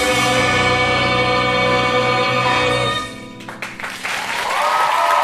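A musical-theatre cast and band hold a final sung chord that cuts off about three seconds in. Audience applause then swells.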